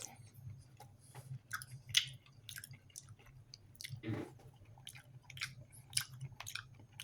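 A man chewing a mouthful of fruit cocktail: irregular small wet clicks and smacks of the mouth, with a somewhat louder smack about four seconds in, over a faint steady low hum.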